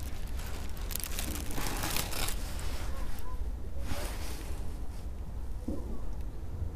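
Handling noise as a camera with a long mirror lens is moved and re-aimed: rustling, scraping bursts about one to two seconds in and again near four seconds, over a steady low rumble.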